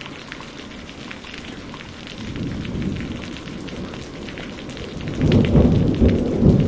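Steady rain with individual drops ticking, and a rumble of thunder that builds from about two seconds in and is loudest near the end.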